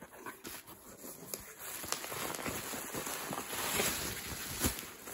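Bubble wrap crinkling and rustling with many small crackles as a bubble-wrapped package is lifted out of a cardboard box, getting louder about two seconds in.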